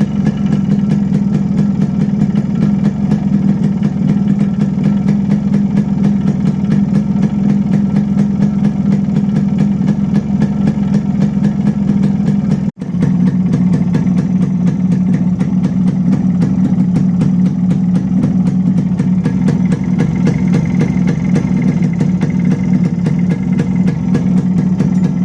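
Yamaha RX100's two-stroke single-cylinder engine idling steadily through its stock exhaust, with a brief break about halfway through.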